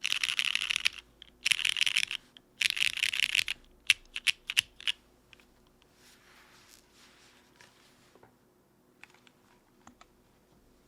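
Mechanical keyboard with Cherry New Nixie switches (lubed with ghv4 and filmed) in a full aluminium plate under GMK keycaps, being typed on in three quick bursts. Several separate key presses follow about four seconds in, and a few faint single clicks come near the end.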